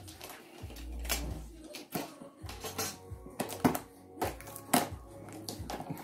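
Cardboard box being handled and its end flap worked open by hand: irregular taps, clicks and scrapes of cardboard, the sharpest about two, three and a half and nearly five seconds in, over background music.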